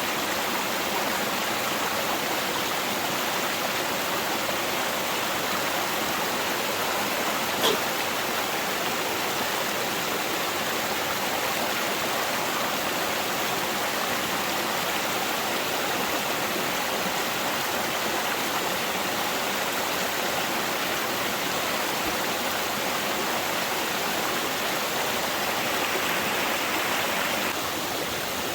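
Steady rushing of running water, with a single sharp click about eight seconds in.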